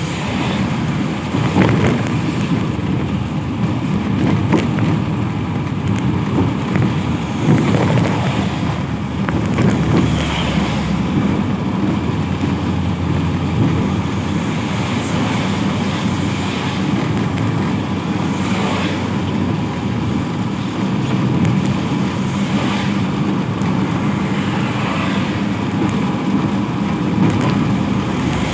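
Steady road traffic on a wet road in the rain: engines and tyre noise of passing vehicles, a constant low rumble with a few swells as vehicles go by.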